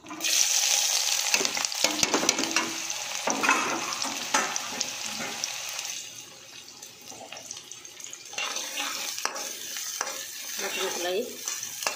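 Chopped onions go into hot oil in a metal kadai with a sudden loud sizzle. The frying eases off about halfway through, then returns with a spatula stirring and scraping the onions around the pan.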